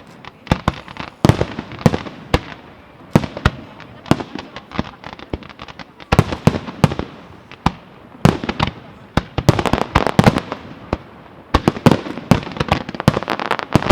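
Fireworks display: a rapid series of sharp shell bursts and bangs, growing denser from about halfway through into an almost continuous barrage near the end.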